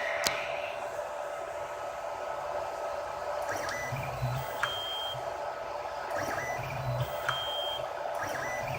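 3D printer running: a steady electrical hum, with a short low burst followed by brief high tones and a click repeating about every two and a half seconds.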